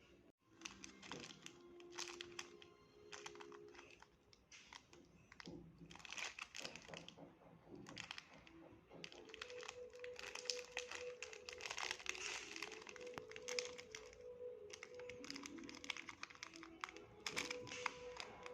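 Packaging of a chocolate bar being handled and opened: dense, irregular crinkling and crackling, busiest about halfway through, over faint background music.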